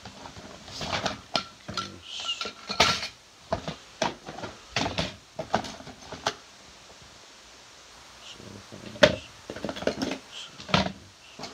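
Scrap sheet-metal CD/DVD drive casings being handled and knocked together: irregular clanks and rattles, with a quieter gap a little past the middle.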